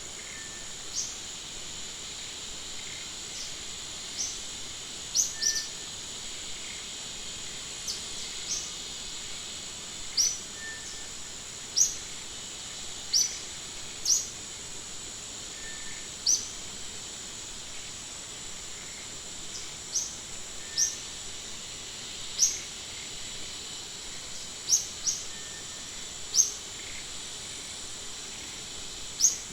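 Outdoor animal sounds: short, high, upward chirps at irregular intervals of a second or two, over a steady high-pitched insect buzz.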